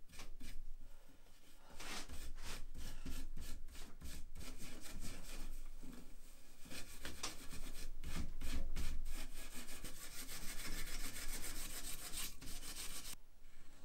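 Steel wool scrubbing back and forth over a wooden chair frame, rubbing off old varnish softened by stripper. It makes a rasping rub, stroke after stroke; the strokes come faster and closer together in the later part, then stop just before the end.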